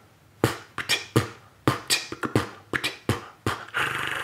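Beatboxed percussion: a quick, uneven run of mouth-made clicks and thumps, starting about half a second in.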